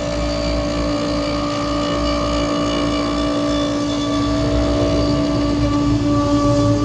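Onefinity CNC router spindle running at a steady high pitch while its bit mills a pocket in end-grain larch, with the rough noise of the cut underneath.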